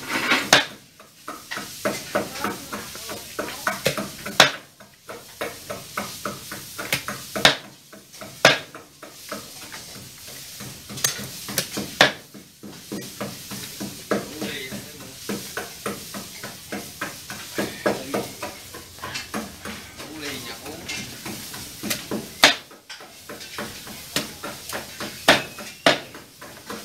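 Chopping knife cutting up a roast duck on a wooden chopping board: irregular sharp chops, a few heavy blows through the bone among many lighter taps.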